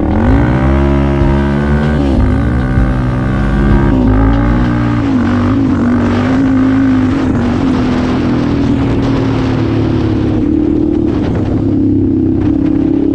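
Yamaha Raptor 700 quad's single-cylinder four-stroke engine under hard throttle as the quad gathers speed. Its pitch climbs steeply, dips and climbs again twice in the first few seconds, then holds steady at speed.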